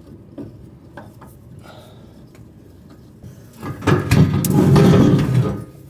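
Metal parts of a combine's threshing area being worked by hand during a concave change: a few light clicks, then, a little over halfway in, about two seconds of loud metal clanking and scraping.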